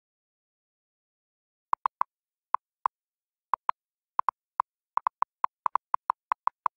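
After nearly two seconds of silence, a keyboard-typing sound effect: short, sharp clicks at an uneven pace that come faster towards the end.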